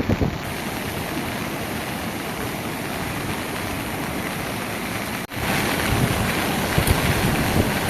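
Heavy rain falling steadily, with wind rumbling on the microphone. The sound drops out for an instant about five seconds in and comes back a little louder.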